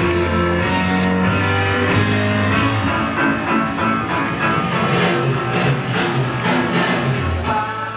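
Rock music with guitar and drums, beginning to fade out at the very end.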